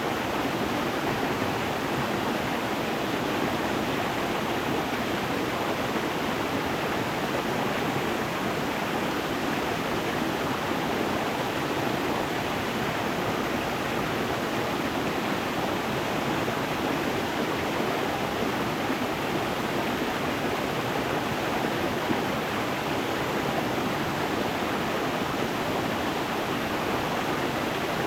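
Stream water running over stones, a steady rushing and burbling without change.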